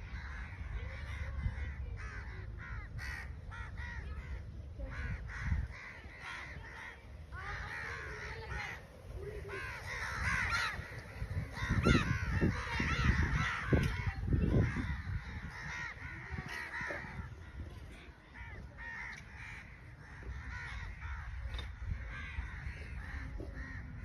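A large flock of crows cawing overhead, many caws overlapping, busiest and loudest around the middle, with low rumbling underneath.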